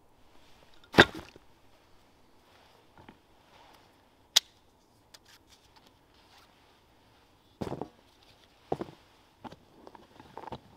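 Knife cutting into a wooden stick: a handful of separate sharp cuts and clicks, the loudest about a second in and a sharp click a few seconds later, with a quicker cluster near the end.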